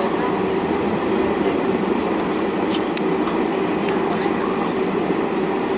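Steady cabin noise of a Boeing 747-400 taxiing, heard from inside the cabin: an even hum and rumble from its four jet engines at low power, with no change in pitch.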